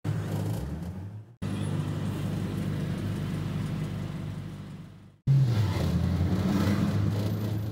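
Double-decker bus running through city traffic, heard from the upper deck: a steady low engine and road hum. It is cut into short pieces, fading out and breaking off about a second and a half in and again about five seconds in.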